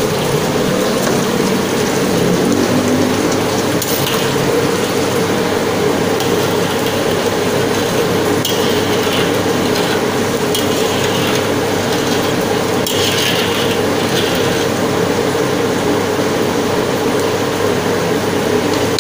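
Steady sizzling hiss of cooking in a steel wok on a lit stove, with a metal ladle scraping against the wok a few times.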